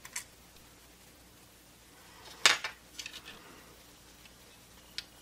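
A few sharp clicks and clatters of hard plastic and small metal parts as a multimeter's circuit board is worked loose with tweezers and lifted out of its plastic case. The loudest click comes about halfway through, followed by a few smaller ones, with a short last click near the end.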